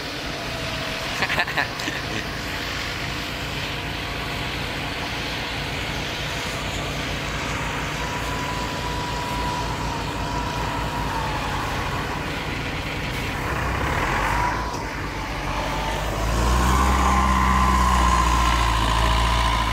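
Combine harvester engine running steadily, with a high whine around the middle. A louder, deeper engine note comes in near the end.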